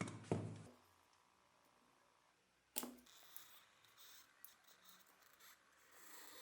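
Small objects handled on a workbench: a knock right at the start, a second sharp knock nearly three seconds in, then a few light clicks.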